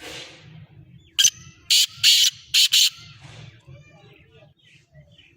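Black francolin giving its loud, harsh call: about five grating notes, a single short one about a second in, then four more bunched close together over the next second and a half. Fainter chirps follow.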